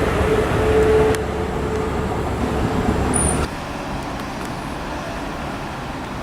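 A Class 333 electric multiple unit running at the platform: a rumble with a steady electrical hum that fades out about two seconds in. About three and a half seconds in, the sound drops suddenly to a quieter, even background noise.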